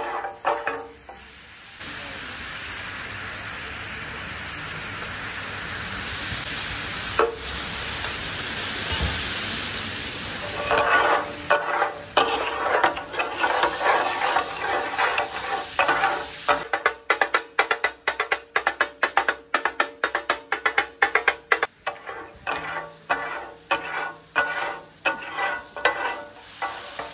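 Chicken katakat frying on a large flat griddle (tawa): a steady sizzle that swells for several seconds. Then two metal spatulas clatter rapidly against the griddle, chopping and turning the food over the sizzle, several strikes a second.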